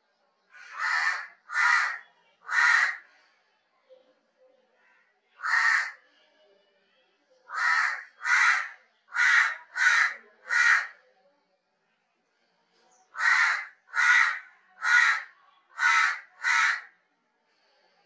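House crow cawing in bouts: three caws, a single caw, then two runs of five caws, each caw short with clear gaps between.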